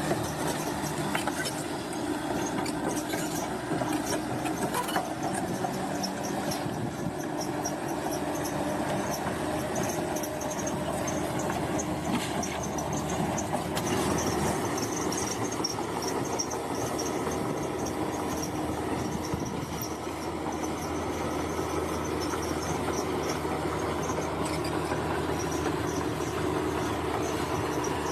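Bulldozer's diesel engine running steadily under load, with the squeal and clatter of its steel crawler tracks.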